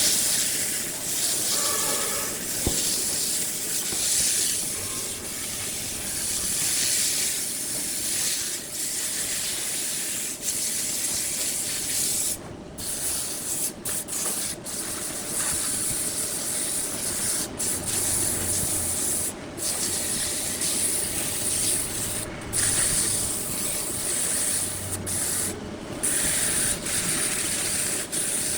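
Steady hissing rub of a tool working wood spinning on a lathe, cut by several brief sudden gaps.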